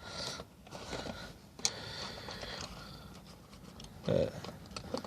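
Faint handling noise of a 12-gauge shotgun shell and its ammunition box being turned over in the hand: light rustling with a few small clicks, the sharpest about a second and a half in.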